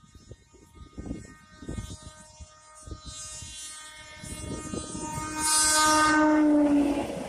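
Horn of a DEMU diesel passenger train sounding one long blast as the train approaches, faint at first and then loud, dropping slightly in pitch near the end as the train comes level and passes. Under it, the train rumbles on the track.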